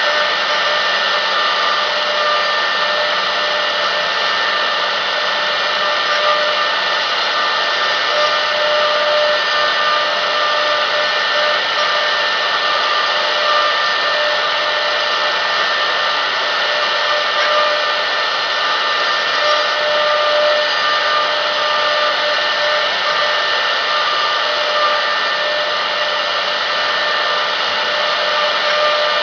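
CNC router spindle running at high speed with a steady whine, its bit carving a block of wood turned on a rotary-axis chuck.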